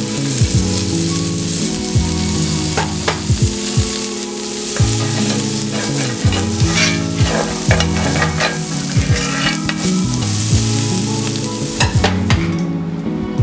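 Food sizzling as it fries in a pan while being stirred, with a utensil clicking repeatedly against the pan.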